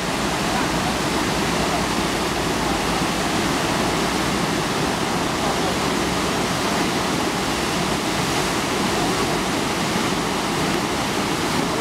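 Steady rush of churning whitewater from a standing wave on a fast-flowing stream, the artificial surf wave, running without a break.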